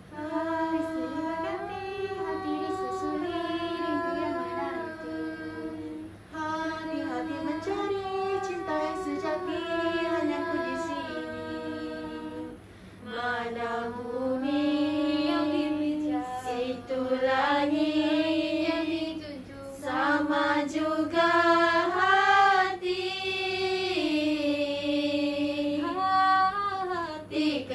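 Small group of young female voices singing a cappella in harmony: long held notes in phrases that rise and fall, growing a little louder about halfway through.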